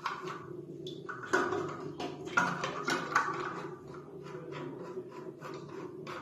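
Plastic clicks and knocks as a toilet cistern's white plastic fill valve is handled and its cap twisted loose to reach the diaphragm washer. The louder knocks come a little over a second in, then twice more at about two and a half and three seconds, over a steady low hum.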